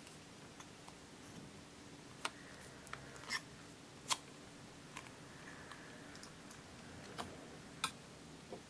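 Hard plastic clicks and taps from a clear candy-shaped plastic slime container being handled and pried open, a few sharp clicks spread over several seconds with the loudest about four seconds in, over a faint steady hum.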